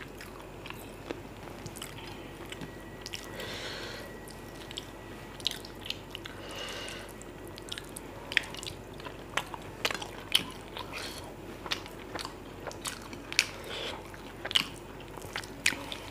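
Close-up eating sounds: chewing and mouth smacks, with fingers squeezing and mixing biryani rice on plates. The sound comes as irregular sharp clicks and smacks, more often in the second half.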